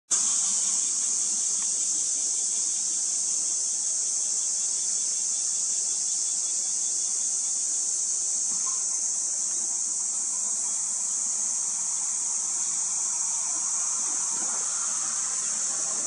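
Steady, high-pitched chorus of insects.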